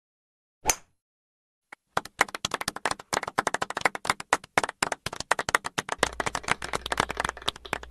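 A single sharp crack of a golf club striking a ball, then applause: many hands clapping from about two seconds in.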